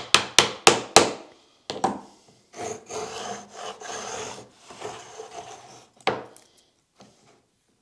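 Four light taps on the router plane's iron in the first second, and one more shortly after, knocking the blade down for a deeper cut. Then several short scraping strokes as the router plane shaves along a groove in the wood, and one last knock.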